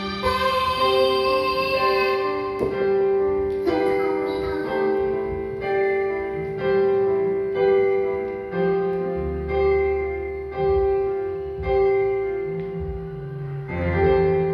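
Karaoke backing track playing an instrumental passage without singing: keyboard or piano notes struck about once a second, each fading, over a held note.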